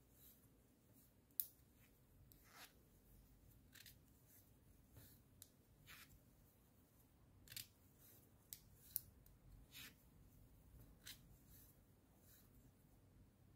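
Knitting needles clicking lightly against each other as stitches are cast on: faint, irregular sharp ticks about one a second, a couple of them louder.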